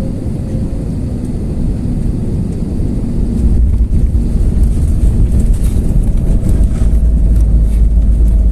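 Airbus A320neo airliner noise: a steady deep rumble that grows louder about three and a half seconds in.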